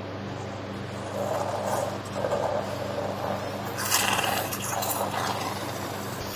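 Operating-theatre equipment giving a steady low hum, with irregular noisy rustling and scraping bursts about one to three seconds in and again around four seconds.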